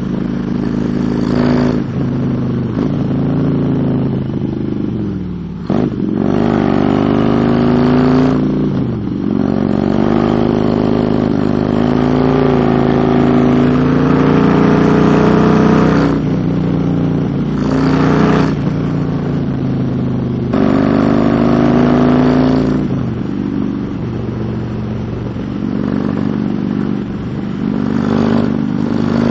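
Motorcycle engine running on the move, its revs dropping and climbing again several times as the rider shifts and rolls on the throttle, with road and wind noise underneath.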